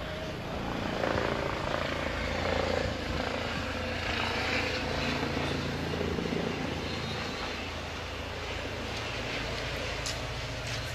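Steady engine drone with a low hum under a wash of noise.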